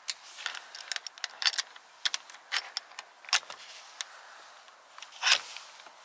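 Irregular light metallic clicks and clinks of an Allen key working the saddle clamp bolts on a bicycle seatpost, with one louder knock about five seconds in.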